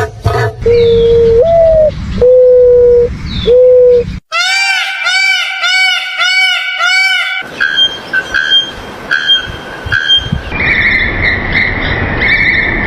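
Birds making strange calls, in three sections that change abruptly. First comes a steady low hooting tone held for about a second at a time, once stepping up in pitch. Then a fast run of arching, whistle-like notes, about five a second, followed by repeated higher piping notes over background noise.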